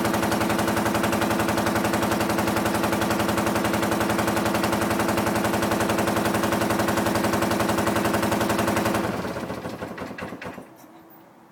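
BMW R65's air-cooled flat-twin engine running with a rapid, even exhaust beat, on a bike being checked for rough running and misfire. About nine seconds in it is switched off and dies away over a second or two.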